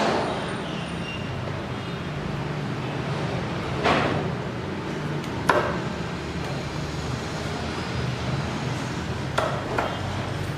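Steady low background hum, broken by about five sharp knocks of objects being handled and set down: one at the start, two around the middle and two close together near the end.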